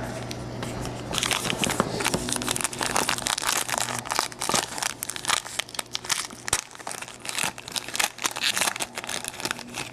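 Foil trading-card pack wrapper crinkling and crackling irregularly as it is handled and torn open by hand.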